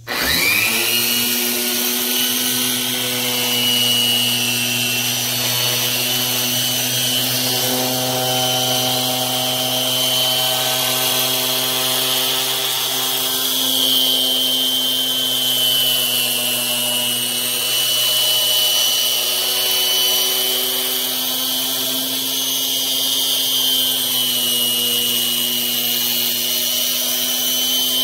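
Corded electric orbital polisher fitted with a sanding disc, wet-sanding a plastic headlight lens. Its motor spins up at the start, then runs at a steady pitch with slight wavers and a high hiss.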